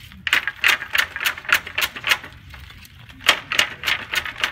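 Wooden flax brake being worked fast, its upper blades slamming down into the lower ones to crush retted flax stalks and crack the woody shives free of the fibre. Sharp wooden clacks about three or four a second, with a pause of about a second midway before they start again.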